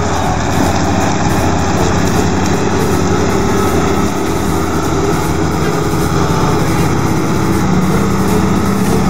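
Same Iron 130 tractor's diesel engine running steadily under load, pulling a two-furrow plough through the soil.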